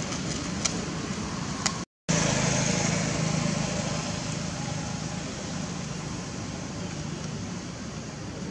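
Steady outdoor background noise with a low hum and a few faint clicks. The sound drops out completely for a moment about two seconds in.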